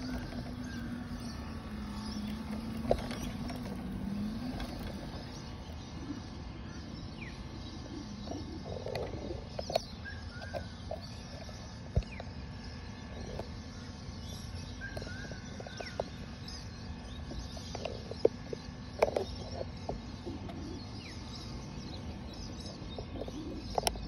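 Birds chirping now and then over outdoor background sound, with scattered sharp clicks. A low hum steps down in pitch and stops about four seconds in.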